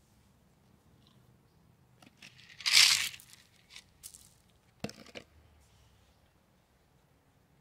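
Seeds being handled and tossed onto concrete patio pavers: a loud rustle about three seconds in, then a sharp click and a short scattering patter about five seconds in.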